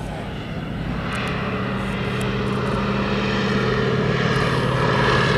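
Fairey Swordfish biplane's single Bristol Pegasus radial engine running in flight, steady in pitch and growing gradually louder as it approaches.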